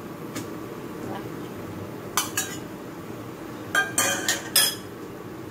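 Metal spoon and spatula clinking against a frying pan as fried potato wedges are added to simmering chicken broth: two sharp clinks about two seconds in, then a quick run of clinks near four seconds, over a steady low background.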